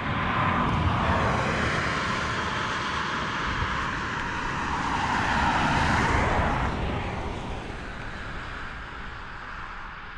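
Traffic passing by: a rush of engine and tyre noise that swells about a second in, eases, swells again about six seconds in, then fades away.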